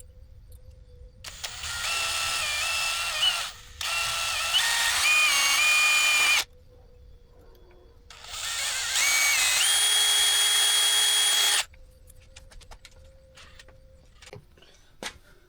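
Electric drill running in three bursts, its motor whine stepping in pitch as the bit loads and unloads, drilling holes out to 1/2 inch. Small ticks and clicks of handling come between the bursts and after them.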